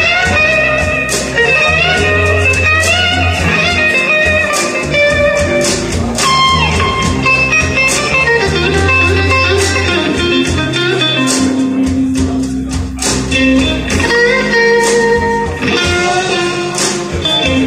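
Recorded blues music playing through a hi-fi stereo's single-ended amplifier and floorstanding speakers, picked up in the room: an instrumental passage with a lead line that bends in pitch.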